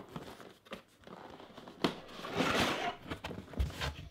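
Cardboard product box being handled and opened: a sharp tap a little before halfway, then about a second of cardboard scraping and rustling as the lid comes off, with a few soft knocks near the end.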